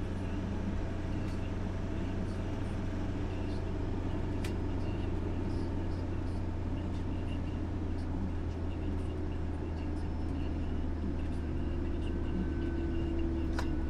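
Motorhome driving along a road: steady engine and tyre noise with a strong low drone.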